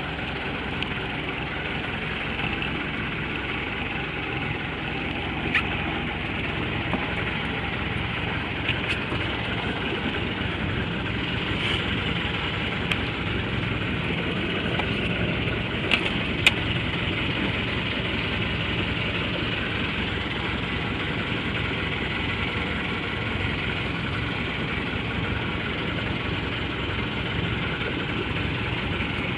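Small fishing boat's engine running steadily at idle, with a handful of sharp clicks in the middle.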